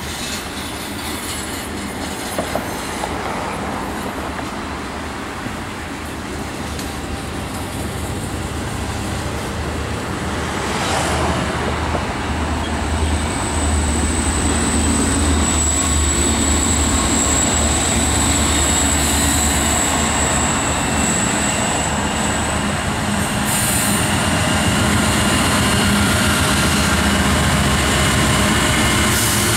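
Norfolk Southern freight trains passing: a double-stack intermodal train rolling by with steady wheel-and-rail noise, while a second train's diesel locomotives approach on the adjacent track, their low engine rumble growing louder from about halfway through. A thin, high steady wheel squeal sounds for several seconds in the middle.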